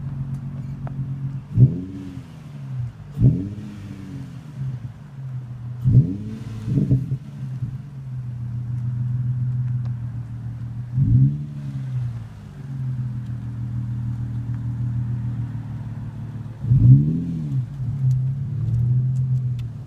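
2003 Infiniti G35's 3.5-litre V6 exhaust with the main muffler deleted: a steady idle, blipped into about six quick revs that climb and fall straight back.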